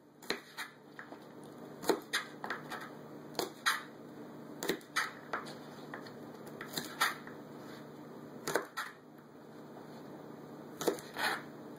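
Kitchen knife chopping the root ends off green onions, the blade knocking down onto a plastic cutting board: about a dozen crisp chops at uneven spacing, often in quick pairs.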